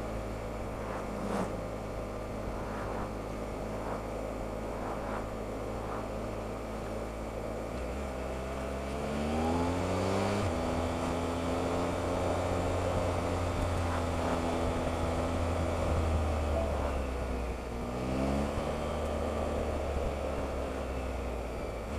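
Onboard sound of a Triumph Explorer motorcycle under way: a steady engine note over wind and road noise. The engine pitch climbs as the bike accelerates, about a third of the way in and again near the end, and it runs a little louder after the first climb.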